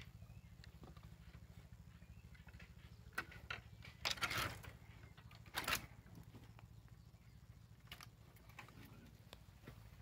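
A person pushing through a fence of rough wooden stakes: scattered clicks and brushing, with two louder rustling scrapes about four and five and a half seconds in.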